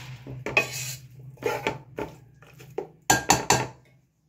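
Wooden spoon stirring chicken pieces and sliced onions in a large aluminium pot, with a series of scraping and knocking strokes against the metal and three quick louder knocks about three seconds in.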